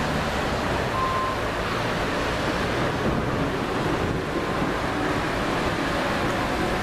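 Steady rush of wind and heavy rain in a thunderstorm, with wind noise on the microphone.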